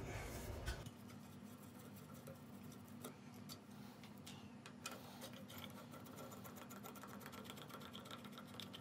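Faint scattered ticks and clicks of a screwdriver turning out the screws of the metal front plate on a 1956 DeWalt MBF radial arm saw's arm, over a faint steady hum.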